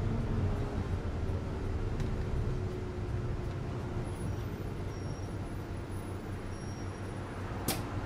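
Cabin of a city bus at a standstill with its engine idling, a steady low hum. A faint tone fades away over the first few seconds, and a single sharp click comes near the end.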